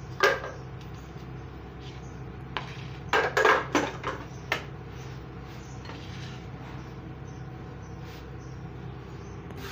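Crockery being handled on a table: one knock just after the start, then a quick cluster of clinks and knocks between about three and four and a half seconds in, over a steady low hum.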